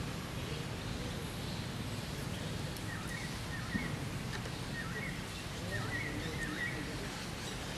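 Steady low outdoor background noise. From about three seconds in until near the end, a run of short, high chirping animal calls comes quickly one after another.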